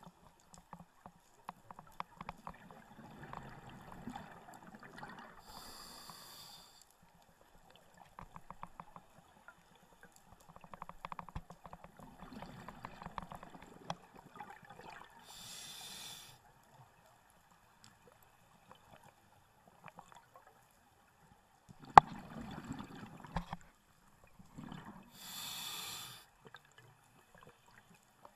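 Scuba diver breathing through a regulator underwater: three slow breaths, each a few seconds of exhaled bubbles gurgling, then about a second of hissing as the demand valve delivers air. A single sharp knock comes about two-thirds of the way through.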